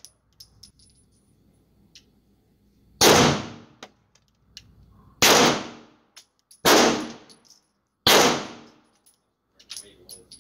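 Smith & Wesson M&P Shield Plus 9mm pistol firing four single shots in an indoor range, one and a half to two seconds apart, each echoing briefly. Light clinks between the shots.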